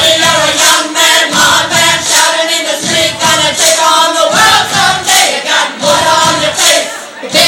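A group of karaoke singers singing loudly together into microphones over a backing track.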